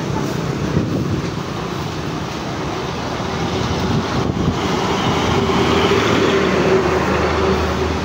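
Strong wind blowing hard on the microphone, a continuous rushing noise with a deep rumble. It swells from about the middle on, with a steady low tone in it.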